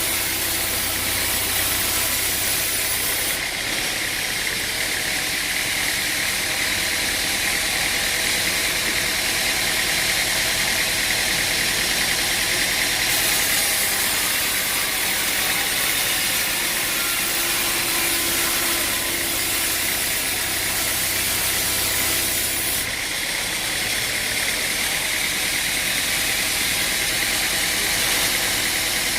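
Engine-driven machinery running steadily, a constant mechanical noise with a strong hiss on top. The hiss changes abruptly several times, about three, thirteen and twenty-three seconds in.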